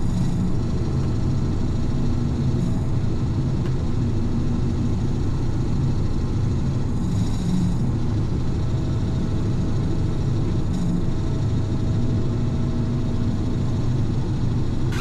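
Combine harvester running steadily in a corn field: a loud, even low rumble with a faint steady hum, and a brief hiss about seven seconds in.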